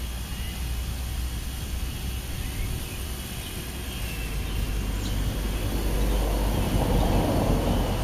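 Low rumble of a passing vehicle, swelling louder from about five seconds in over a steady low background hum.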